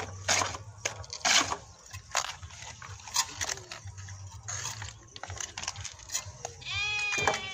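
Steel trowels scraping and tapping as mortar is spread and natural stone cladding pieces are pressed and set, giving scattered clicks and clinks of stone and metal. Near the end comes one drawn-out animal call that bends in pitch.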